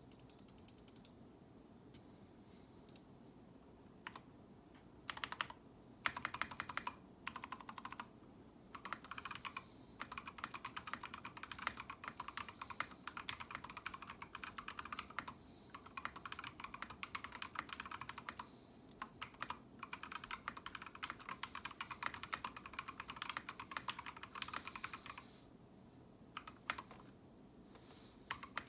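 Typing on an Idobao Crystal mechanical keyboard with lubed and filmed Kiwi tactile switches. A few scattered keystrokes come first, then fast continuous typing from about nine seconds in, with brief pauses, thinning back to scattered strokes near the end.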